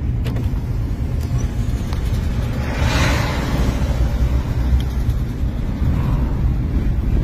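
Steady low rumble of a vehicle driving, heard from inside the cab, with a brief rush of noise about three seconds in.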